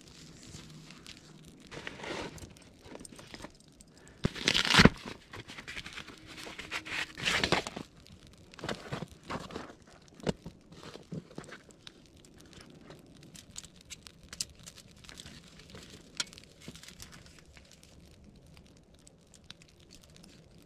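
Rustling of fabric and clothing, with a few louder rustles in the first half, then a run of small clicks and clinks as a wire mesh grill and its wire hangers are handled.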